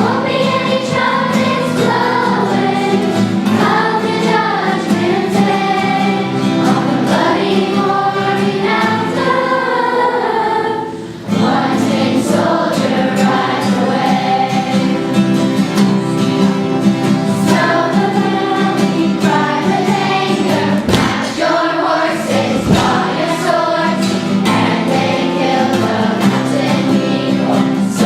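Choir of 8th grade students singing a song together, with a short break in the singing about eleven seconds in.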